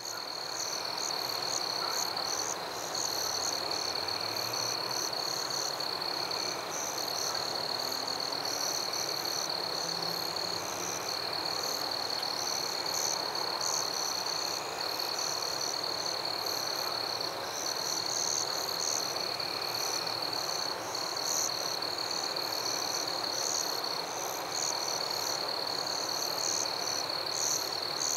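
A nature chorus of insects and frogs: one steady, high-pitched trill that breaks off briefly every few seconds, with a dense layer of rapid, higher chirps over a soft background hiss.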